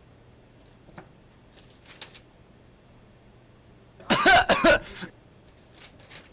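A person coughs twice in quick succession about four seconds in.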